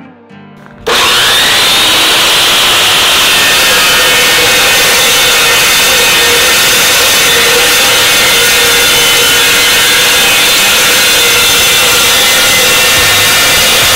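Metal chop saw cutting through rectangular steel tubing: a loud, steady grinding whine that starts abruptly about a second in and keeps going without a break.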